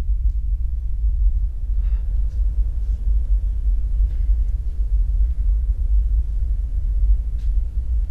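Deep, steady low rumble with a few faint soft clicks over it.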